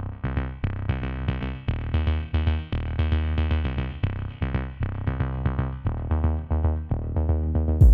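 Electronic background music with a drum-machine beat and synthesizer notes.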